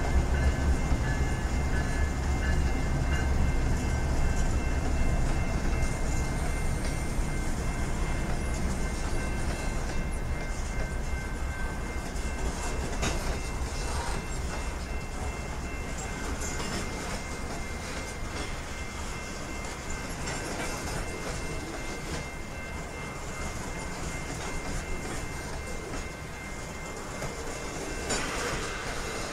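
Canadian Pacific freight train rolling through a level crossing. The diesel locomotives' low engine rumble is loudest over the first several seconds and slowly fades, leaving the steady rolling and clickety-clack of grain hopper cars on the rails, with a few sharp clanks.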